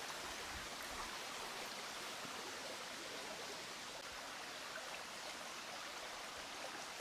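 Faint, steady rushing of the Kluczwoda stream flowing through the valley, with no distinct events.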